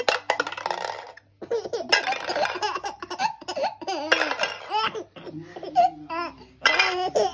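A baby laughing hard, in about four bouts of breathy laughter broken by short high squeals.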